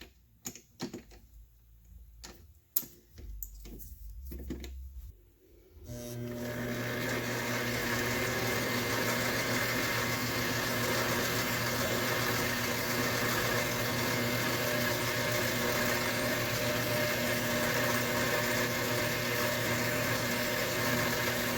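A few clicks and knocks of handling, then about six seconds in a lathe motor starts and runs steadily, a hum with a steady whine over a noisy whirr.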